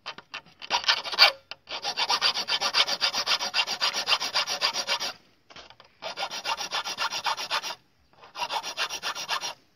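Flat steel file rasping in rapid back-and-forth strokes on the flattened tip of a steel nail, in four spells with short pauses between them. The file is shaping the flattened nail tip into the point of a homemade drill bit for wood.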